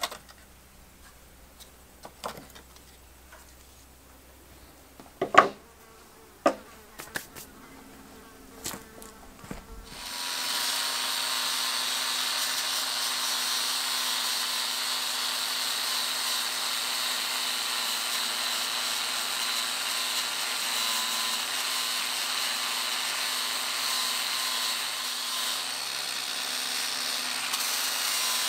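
A few sharp knocks and clicks of wooden wheel parts being handled, then about ten seconds in an angle grinder starts and runs steadily with a high whine, grinding at the wagon wheel's iron tyre.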